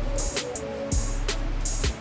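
Background music with a steady drum beat: kick drum, hi-hat and a held bass line.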